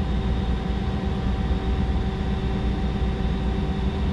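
Mazak 200MY CNC lathe running with a steady mechanical hum, a few steady tones over a low rumble, while its Y axis is jogged down towards home.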